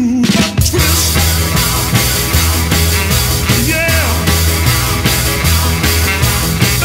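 Rock music soundtrack with a steady drum beat and band accompaniment.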